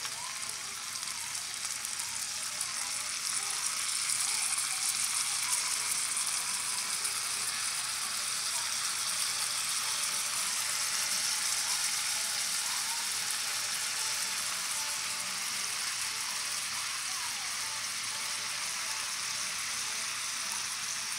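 Chicken drumsticks frying in hot fat in a cast-iron skillet as a gravy slurry is poured in: a steady sizzling hiss that gets a little louder about four seconds in.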